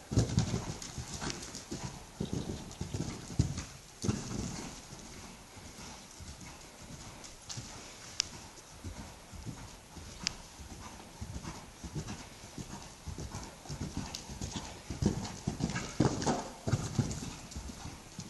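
Horse's hoofbeats at a canter on the soft sand footing of an indoor riding arena: dull thuds in uneven groups, loudest at the start and again a little before the end. A couple of sharp clicks come in the middle.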